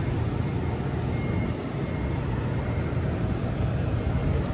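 Steady low rumbling noise, even throughout, with no distinct events.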